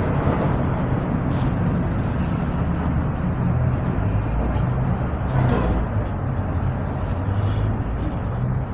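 Volksbus 17-230 OD city bus running, its engine a steady low drone, with a few brief high squeaks and a short louder rush about five and a half seconds in.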